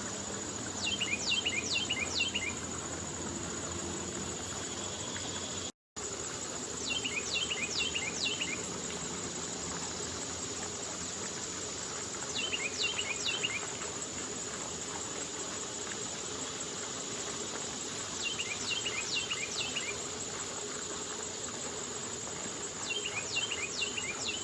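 A songbird repeating a short phrase of four or five quick down-slurred whistles about every five to six seconds, over a steady high-pitched insect trill. The sound cuts out briefly about six seconds in.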